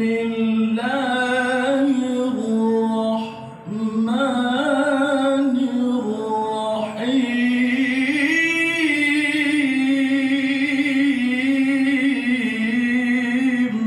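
A man's voice chanting a melodic Quran recitation (tilawah) into a hand microphone over a loudspeaker. It comes in three long phrases of drawn-out, ornamented notes, with short breaths between them about three and a half seconds and seven seconds in.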